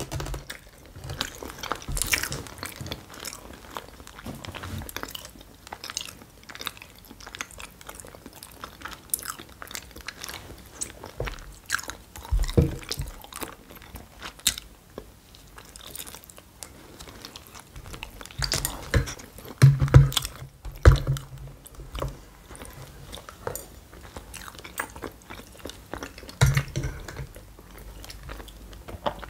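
Close-miked eating: a person chewing and biting food, with wet mouth sounds, crunchy bites and several sharper clicks and knocks.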